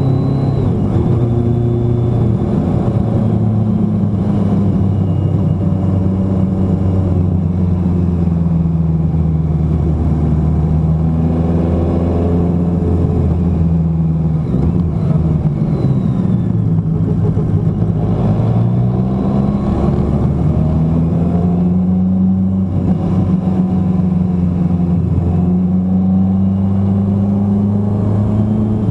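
Engine of a road vehicle running steadily on the move, with road noise underneath. Its pitch sags slowly over several seconds about a third of the way in, then climbs again a few seconds later and holds.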